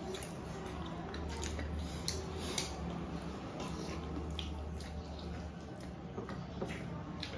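Eating at a table: a metal fork clicking and scraping on ceramic plates, with chewing, as scattered short taps over a low steady hum.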